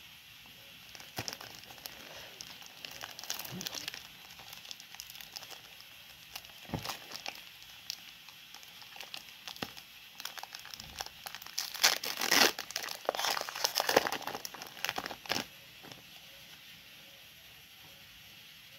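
Foil wrapper of a Pokémon trading card booster pack crinkling and tearing as it is opened by hand. The crinkling comes in irregular spells, loudest about two-thirds of the way through, and dies down near the end.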